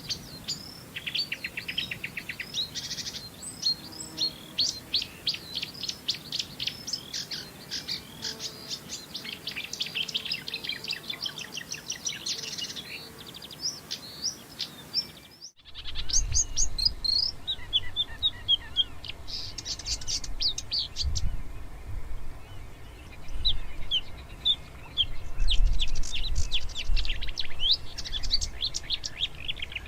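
Marsh warbler singing a fast, varied song of rapid chirps, trills and buzzy notes, the species' mimicry-laden song. About halfway through the song cuts to another bout with a low rumble underneath.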